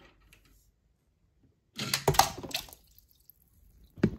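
A small die-cast toy jeep drops off a ledge and splashes into a plastic tub of water about two seconds in, a short splash of about a second. A short knock follows near the end.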